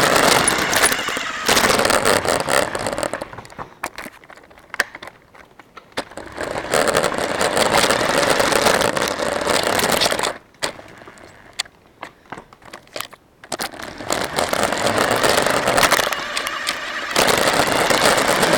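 RC car driving in spurts, heard from the camera mounted on it: a few seconds of motor and tyre noise rattling and scraping over the ground, then quieter pauses with small clicks and crackles, three times over.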